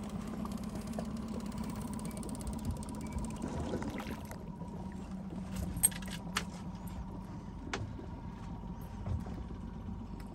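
Outboard motor idling steadily, with a few sharp clicks and knocks in the second half.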